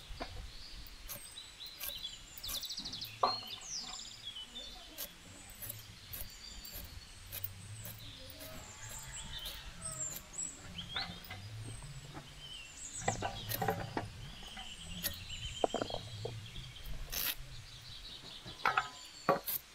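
Vegetables, green beans and then tomato, being cut by hand against an aruvamanai, a curved blade fixed upright on a wooden base, giving scattered sharp clicks and snaps. Birds chirp throughout.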